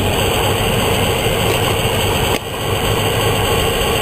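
Car engine and road noise heard from inside a moving car: a steady hum, with a brief drop just past halfway.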